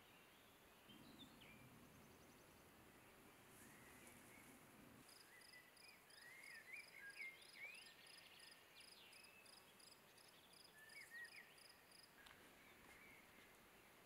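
Faint meadow ambience of birdsong: scattered short chirps and whistles, busiest a few seconds in. From about five seconds in there is also an evenly repeated high call, about three a second, that stops near the end.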